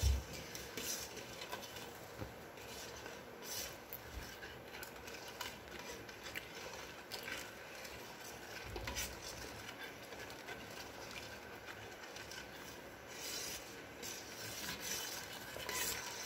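Steel spoon stirring milk reducing down for palkova in a wide steel pot, with faint scraping and light clicks of the spoon against the pot's sides and bottom; the milk is stirred often so no cream skin forms. A low knock sounds at the very start.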